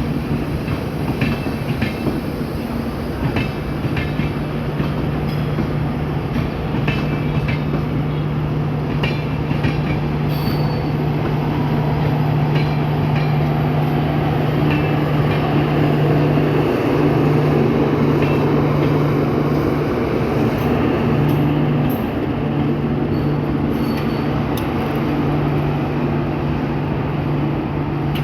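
Electric express train running at speed: a steady low hum and rumble, with wheels clicking over rail joints, the clicks thicker in the first half.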